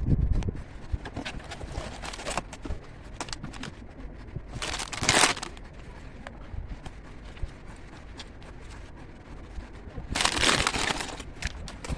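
Packaging being handled, crinkling and rustling with scattered small clicks. It is loudest in two bursts, about five seconds in and again near the end.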